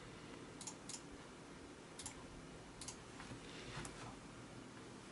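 A few faint computer mouse clicks, scattered and some in quick pairs, over a low steady background hiss.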